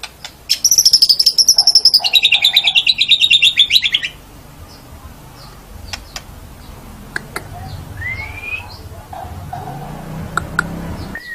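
White-rumped shama (murai batu) singing: a loud, rapid trill of repeated notes lasting about three and a half seconds, stepping down in pitch partway through. It is followed by softer clicks and two short rising whistles, one about eight seconds in and one near the end.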